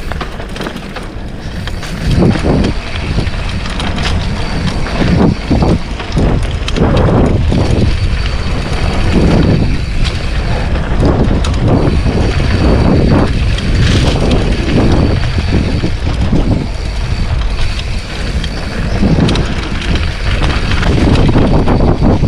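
Mountain bike running down a rough trail: wind buffets the microphone in a steady low rumble, with the bike rattling and thudding over bumps.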